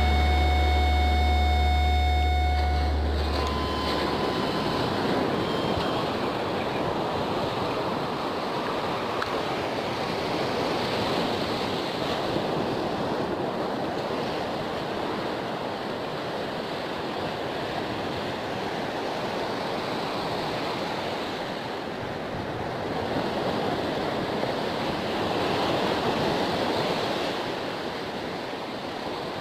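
Surf breaking and washing up a sandy beach, a continuous rush that swells and ebbs with the waves. A music track stops about three seconds in.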